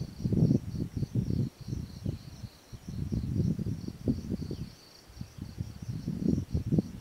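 A steady, high chorus of insects trilling, under irregular low rumbling gusts of wind buffeting the microphone. The gusts rise and fall throughout, dropping briefly about two and a half seconds in and again near five seconds.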